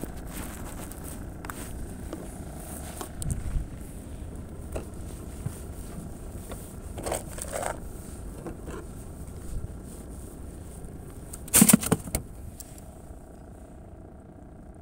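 Handling noises on a small fishing boat: scattered light clicks and knocks over a steady low rumble, with a loud clatter about twelve seconds in.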